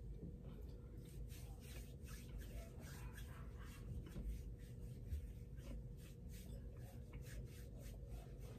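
Faint eating and food-handling sounds: pita bread with hummus being chewed, with light rustling and a scatter of small clicks, over a faint steady hum.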